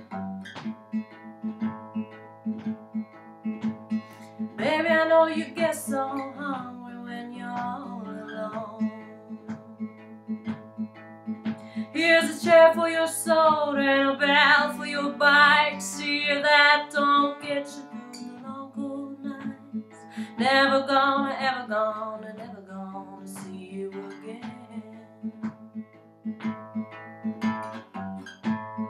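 Woman singing a blues song to her own Fender steel-string acoustic guitar, the guitar keeping up a steady picked pattern throughout. Sung lines come in three phrases, with stretches of guitar alone between them.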